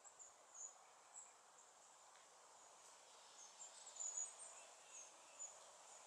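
Faint outdoor ambience: short, very high-pitched chirps of small birds, repeated irregularly and loudest about four seconds in, over a low steady hiss.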